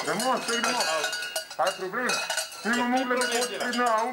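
Bells and chains on the parklji's (Slovenian Krampus figures') sheepskin costumes jingling and clanking without a break, under loud talking voices.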